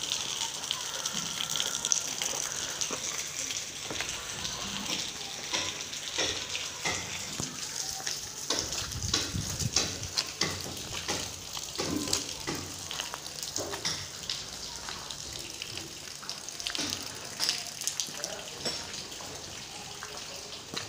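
Steady rain falling, with a dense, irregular crackle of drops hitting wet ground and puddles.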